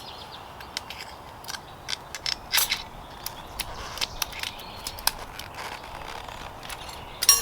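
Irregular small metallic clicks and scrapes as the mount of a spoon target is bent and worked with pliers.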